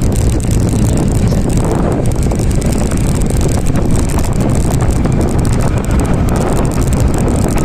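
Wind buffeting the microphone of a phone mounted on a moving motorbike, a steady loud rumble with the bike's engine and tyre noise underneath.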